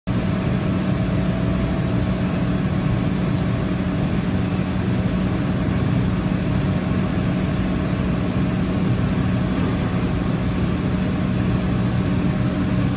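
DMG DMF 360 Linear vertical milling machine running with its spindle head working in a mist of coolant: a steady machine hum with an even hiss over it.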